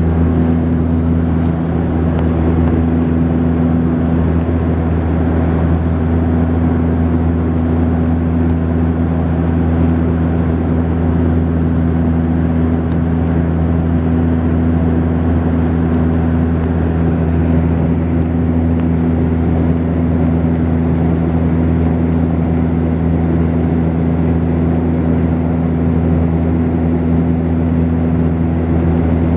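Steady cabin drone of a Saab 340B in flight: its two General Electric CT7 turboprops and propellers make a constant low hum of several fixed tones over an even rushing noise, with no change in power.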